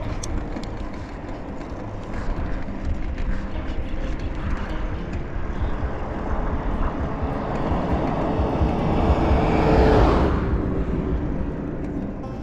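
Wind rumbling on the microphone of a moving bicycle, with a motor vehicle passing close by: its noise builds to a peak about ten seconds in and then fades.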